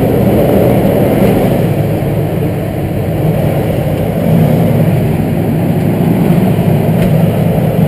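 Semi-truck's diesel engine running at crawling speed with a heavy rumble as it rolls over a rail bridge, the bridge creaking and cracking like crazy under the truck.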